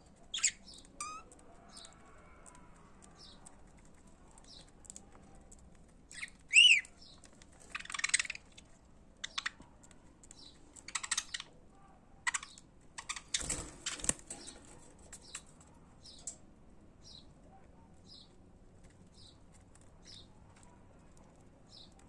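Budgerigars chirping and chattering: short high chirps, a loud whistled call about six seconds in, bursts of raspy chatter through the middle, then soft chirps repeated at an even pace.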